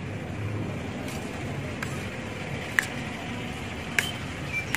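Hand mixing grated radish and chopped tomato salad in a steel plate: a couple of light clicks against the plate over a steady background hum.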